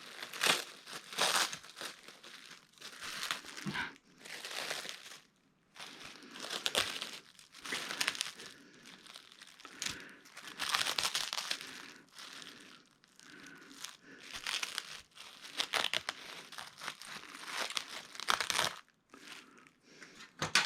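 Irregular plastic crinkling and rustling with some tearing, in uneven bursts, as TV LED backlight strips and their plastic wrapping are handled.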